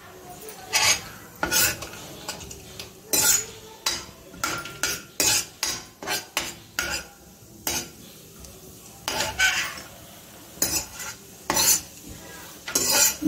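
Steel ladle repeatedly scraping and clinking against a stainless steel kadai while stirring cashews frying in ghee and oil, with the frying fat sizzling underneath.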